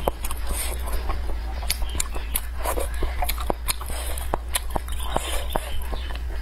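Close-miked chewing of spicy hot pot food: wet mouth sounds with sharp crunchy clicks about three a second, over a steady low hum.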